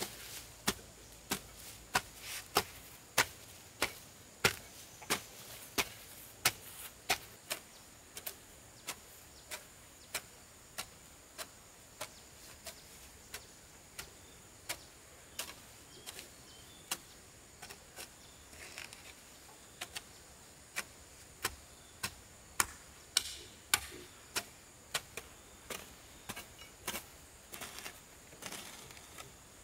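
Hoe chopping into grassy soil, one sharp strike about every half second to second in a steady digging rhythm.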